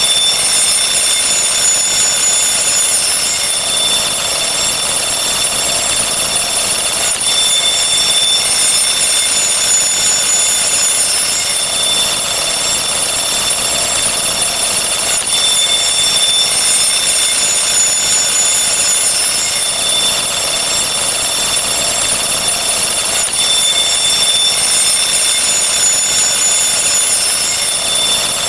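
Dense, unbroken wall of counting sound effects overlapping one another. It is heavy in steady high tones, with a pattern that repeats about every four seconds.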